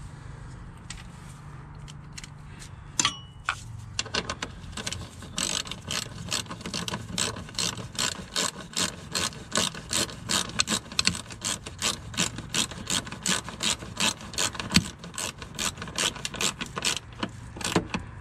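Hand ratchet clicking steadily, about three clicks a second, as it winds in the screw on the fuel filter's clamp bracket. A single sharp metallic clink comes about three seconds in, before the ratcheting starts.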